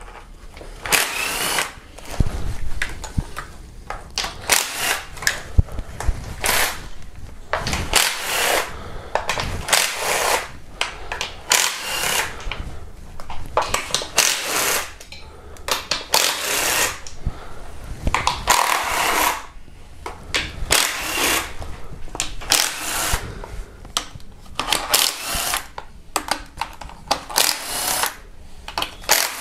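Air ratchet spinning out valve cover bolts in many short bursts, one every second or two, each a whirring buzz with the hiss of air.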